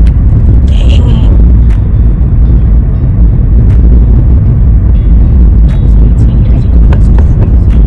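Car on the move: a loud, steady low rumble of road and wind noise, with a few faint clicks.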